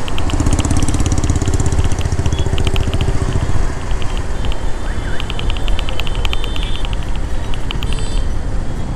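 Yamaha R15 V4's single-cylinder engine running as the motorcycle slows in traffic, heard from the rider's seat.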